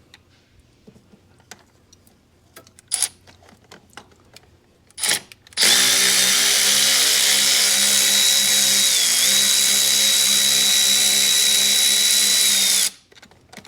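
Power drill spinning steadily for about seven seconds, its motor pitch dipping briefly partway through as it takes load, then stopping suddenly. Before it starts, a few light clicks and knocks of tools being handled.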